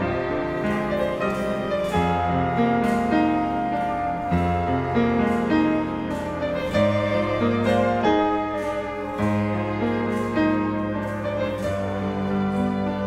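Grand piano and string quartet playing together: long held bowed notes over struck piano chords.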